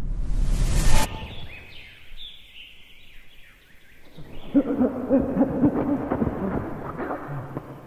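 A low rumbling whoosh that stops abruptly about a second in, then small birds chirping with short falling notes. About four seconds in, a lower pitched, hooting call comes in and runs for a few seconds, with crunching in the snow.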